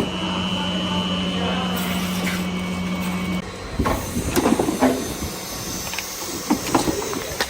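A workshop machine's steady hum that cuts off about three and a half seconds in, followed by irregular knocks and clatter of metal being handled.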